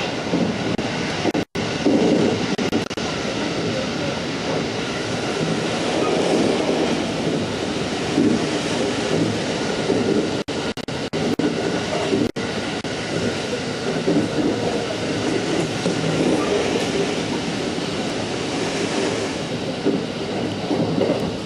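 Running noise of a JR West 223 series 2000-subseries electric train, a Kawasaki-built set with a Mitsubishi second-generation IGBT inverter, travelling between stations: a steady rumble of wheels on rail together with traction-motor noise. It is broken by a few split-second gaps in the sound.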